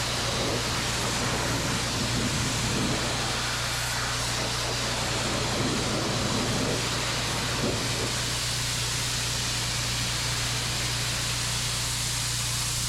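Pressure washer spraying: a steady hiss of the high-pressure water jet over a constant low hum from the machine.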